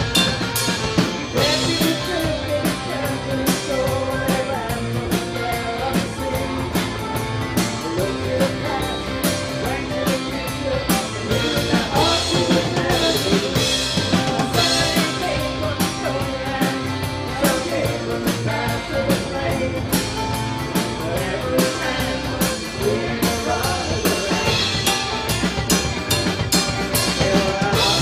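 Celtic rock band playing live: drum kit keeping a steady beat under electric bass, acoustic and electric guitars and mandolin, with singing.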